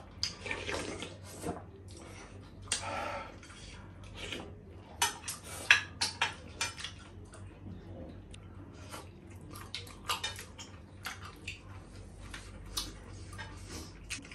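Close-up eating sounds: plastic spoons clicking against dishes, slurping of miswa noodle soup and wet chewing, as many short irregular clicks and smacks.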